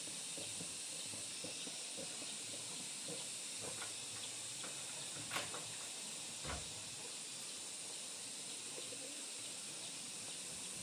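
Steady high-pitched hiss, with a few faint clicks and a soft knock about six and a half seconds in.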